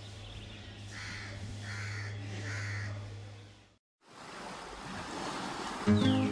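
A crow cawing three times, about a second apart, over a low steady hum. After a brief gap of silence, a rushing noise rises, and plucked guitar music starts near the end.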